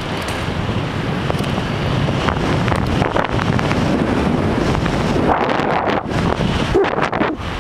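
Wind buffeting a helmet-mounted camera's microphone while riding, a steady rumbling roar with small gusty dips.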